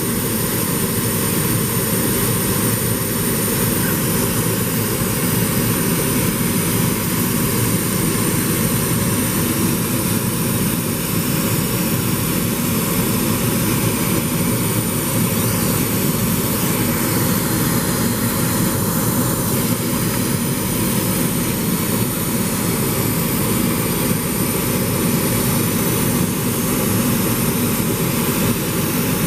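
CNC laser cutter running as it cuts a polyurethane foam insert: a steady mechanical drone that swells up in the first second and then holds level.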